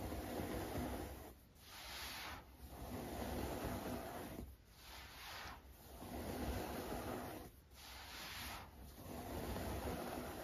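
Baking soda crumbling and falling in streams, making a soft crunching hiss. It comes in about six swells of a second or two each, with short pauses between them.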